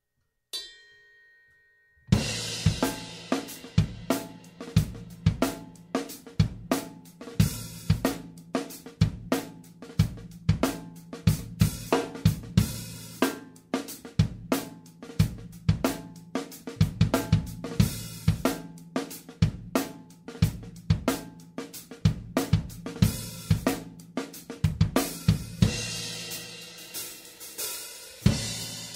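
An acoustic drum kit played on its own, with no other instruments: kick drum, snare, hi-hat and crash and ride cymbals in a steady beat with fills. The beat starts about two seconds in, after a short faint ringing note.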